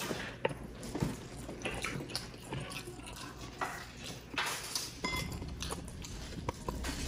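Close-up wet eating sounds of juicy roast chicken being chewed and pulled apart by hand: irregular lip smacks, moist clicks and short squelches.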